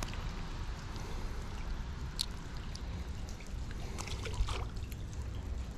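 A small splash about four seconds in as a little bluegill is dropped back into the creek, over a steady low rumble.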